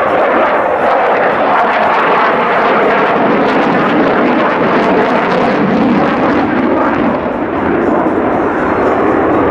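Jet fighter's engine noise during an aerobatic display: a steady, loud rushing sound, with a brief dip about seven seconds in.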